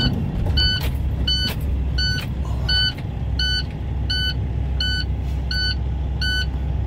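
Semi truck's reverse backup alarm beeping steadily, about three beeps every two seconds, heard from inside the cab over the low drone of the diesel engine as the truck backs up.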